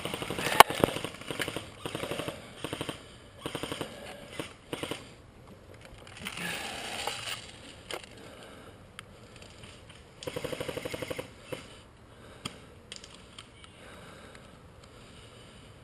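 Airsoft rifles firing in several short full-auto bursts of rapid, evenly spaced clicks. The longest burst comes about ten seconds in.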